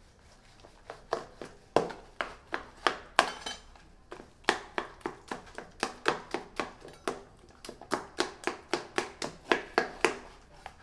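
Quick, regular knocking of kitchen utensils as food is prepared: a knife cutting bread down onto a cutting board, and a spoon working fish paste in a stainless steel bowl. The knocks are scattered at first and settle into about three a second from roughly four seconds in.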